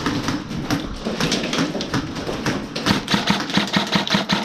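Airsoft gun firing a rapid string of shots, a fast run of sharp snaps that grows denser and louder in the last second and a half.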